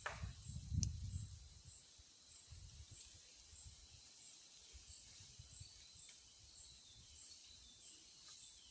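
Quiet tropical forest ambience: a faint high insect chirp repeating about twice a second, with a few faint falling bird whistles in the second half. A low rumble of wind or handling on the microphone in the first second or so.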